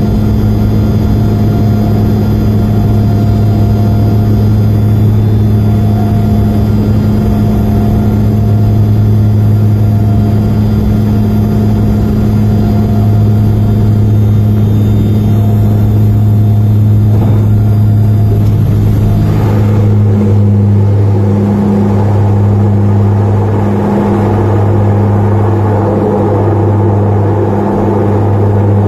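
Airliner cabin noise during landing: the engines' steady low drone as the plane comes down and rolls out on the runway. About twenty seconds in the sound changes, with more rushing noise and the hum beginning to pulse as the aircraft slows.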